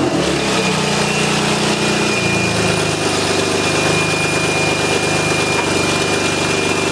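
BMW E36 engine running through a leaking, straight-piped exhaust: the revs drop back at the start and step down about two seconds in, then it holds a steady idle. The exhaust has a hole in it and is loud.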